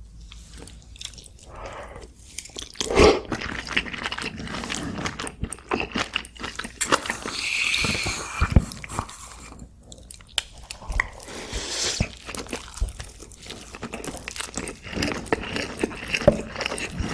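Close-miked chewing of braised kimchi and rice: wet smacking and soft crunching with many small clicks, and a longer hissing stretch about halfway through.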